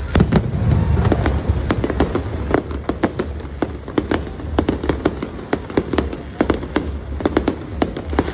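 Aerial fireworks shells bursting in quick succession: a heavy boom right at the start, then a dense run of sharp bangs and crackles, several a second.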